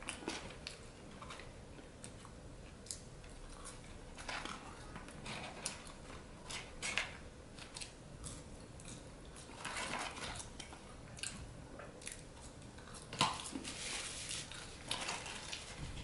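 A person eating French fries: faint, irregular chewing and mouth sounds, mixed with brief scraping and rustling as fries are picked out of a cardboard box.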